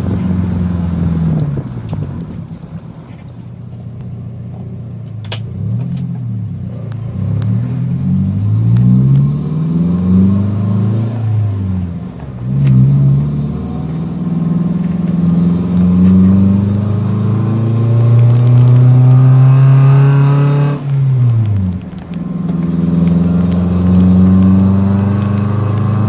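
Daihatsu Gran Max's four-cylinder engine through an aftermarket Alpino header and muffler with the stock resonator removed, heard from inside the closed cabin while driving. The loud exhaust note climbs in pitch as the van pulls, then drops back and climbs again several times, with a quieter stretch early on.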